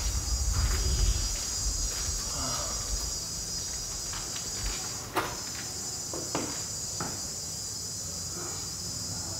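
A steady, high-pitched chorus of insects, with a few soft knocks in the second half.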